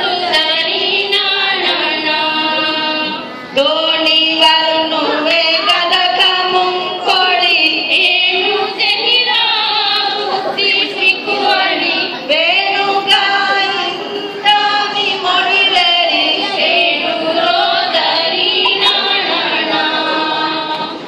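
A group of women chanting a Maldivian lhen, a Dhivehi lullaby poem, in a slow sung melody with long held notes, with a brief break between lines about three and a half seconds in.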